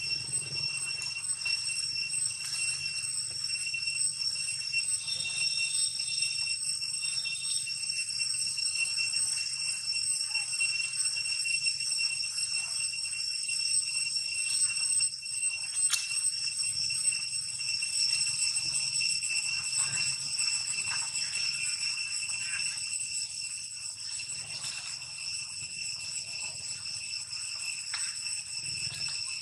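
A steady high-pitched ringing drone held on one pitch, with fainter higher overtones above it, over faint rustling and small knocks; one sharp click about halfway through.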